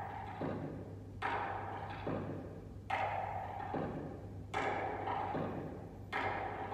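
A steady hula percussion beat keeping time for the kaō step, a lower and a higher drum strike in turn, a little under a second apart, eight strikes in all.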